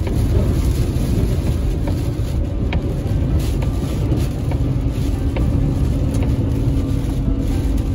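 Road noise heard inside a car cabin on a wet freeway in heavy rain: a steady low rumble of tyres on wet pavement, with scattered faint ticks. A faint steady hum joins about five seconds in.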